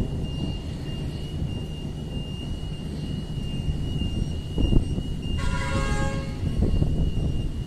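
Steady low rumble of rain and road traffic. A vehicle horn toots once, for under a second, about five and a half seconds in.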